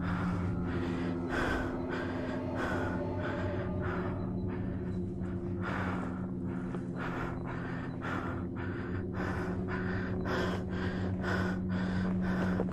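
A hiker's heavy, rhythmic breathing while climbing a steep trail, about one or two breaths a second, over steady droning background music.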